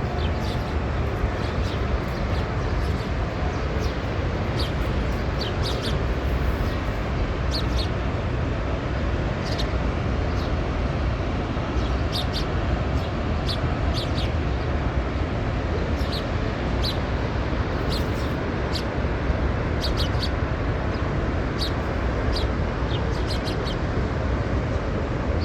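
Small birds chirping in short, high calls every second or so over a steady, low rushing noise.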